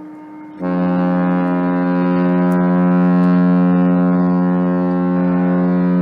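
Cruise ship Mein Schiff 6's horn sounding one long, steady blast that starts suddenly about half a second in and holds.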